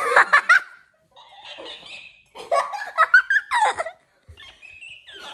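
Girls laughing and giggling in several bursts, loudest at the start and again from about two and a half to four seconds in.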